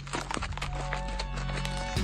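Background music with steady low notes and held higher notes, over the occasional hoofbeats of a horse moving on a dirt track.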